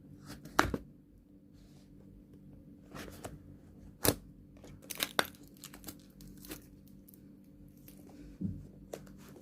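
Microphone box packaging being opened by hand: scattered tearing, crackling and rustling, with sharp snaps just after the start and about four seconds in.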